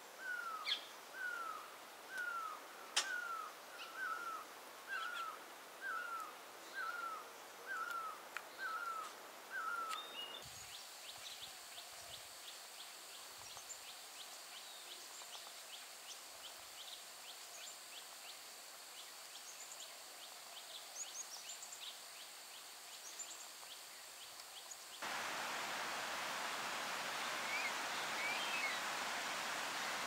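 Wild birds and insects. For about ten seconds a single short call repeats roughly every three-quarters of a second. It gives way to a steady high insect drone with rapid bird chirps, and in the last five seconds an even rushing noise takes over.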